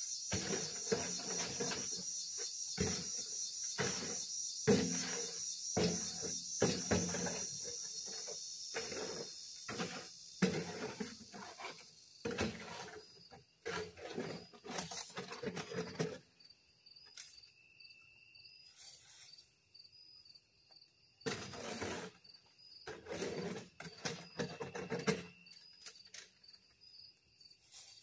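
Repeated knocks and scrapes of a long-handled hand tool working the ground, fast and irregular for the first half, then stopping except for two short bouts later. Crickets chirp steadily behind, high-pitched and pulsing once the tool work thins out.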